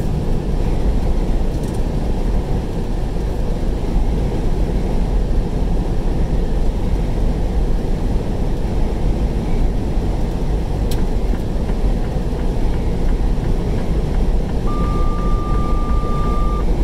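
Steady road and engine noise inside a vehicle cab at highway speed, heavy in the low end. Near the end a single steady beep sounds for about two seconds.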